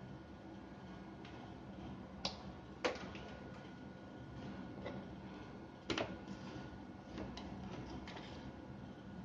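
Handling noise at a workbench: hands setting down and picking up tools and small drill parts, with three sharper knocks about two, three and six seconds in and lighter clicks between, over a faint steady hum.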